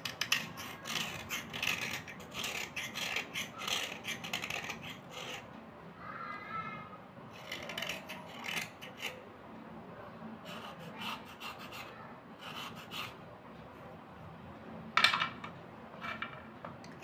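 Small knife blade scraping white slate pencils in quick runs of scraping strokes, densest in the first five seconds and sparser after. Near the end comes one sharp sound, the loudest in the stretch.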